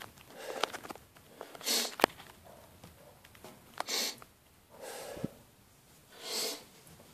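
A man's short, forceful breaths through the nose, four of them about a second apart, taken close to the microphone while gearing up for a heavy squat, with a few sharp clicks of handling in between.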